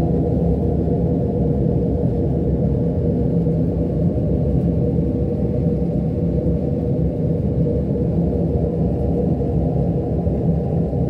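Laboratory fume hood's extraction fan and airflow running steadily: an even, deep rumble with a faint hum.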